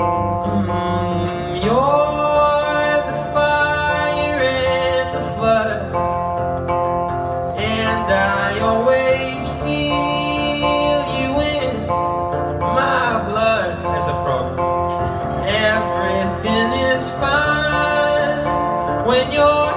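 Acoustic guitar strummed live, with a sung voice coming in over it in several stretches.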